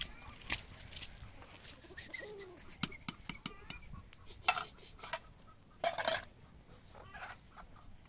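Light clinks and scrapes of a utensil against a cooking pan, with two louder clatters about four and a half and six seconds in. Chickens cluck now and then.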